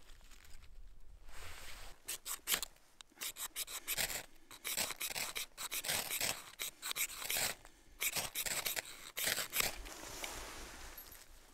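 Ferro rod struck over and over with a steel striker to throw sparks onto damp tinder: a quick run of short, sharp rasping scrapes, about two or three a second, from about two seconds in until near the end.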